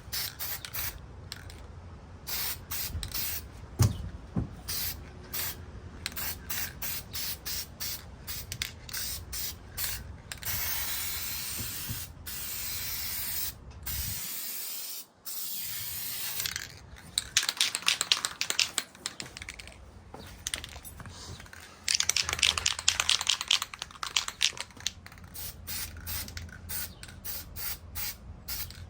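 Aerosol can of black spray paint hissing in many short bursts, with a few longer sprays, as a coat of paint goes onto a sway bar.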